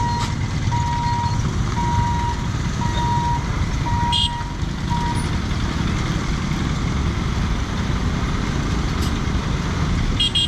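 An electronic warning beeper sounding five even beeps about a second apart, stopping about halfway through, over the steady low rumble of vehicle engines.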